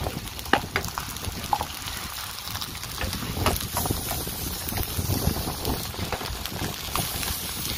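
Wind buffeting the microphone as a steady low rumble, with a few light clicks and crackles scattered through it.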